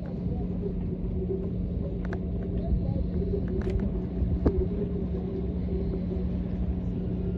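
An engine running steadily: a low rumble with a constant hum, and a few faint clicks.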